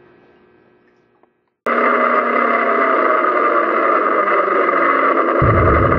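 Aircraft engines droning loud and steady, cutting in abruptly about a second and a half in after faint room tone. A heavy low rumble joins near the end.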